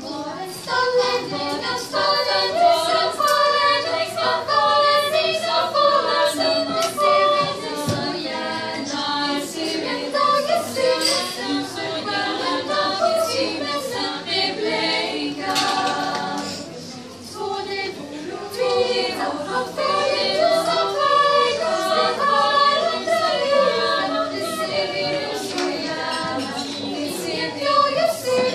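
A Lucia choir of young women singing a cappella in unison, holding long notes, with a brief lull in the singing just past the middle.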